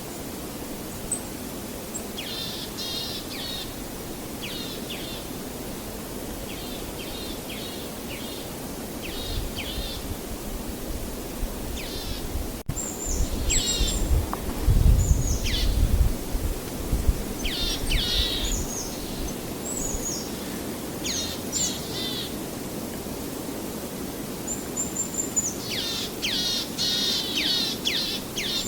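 Small birds chirping and trilling in quick repeated calls, busier in the second half, over a steady rushing background; a low rumble swells briefly around the middle.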